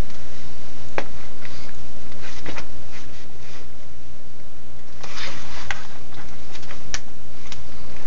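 Newspaper pages rustling and crinkling in a few short bursts as a cat paws at them and a hand lifts and turns them, over a steady low hum.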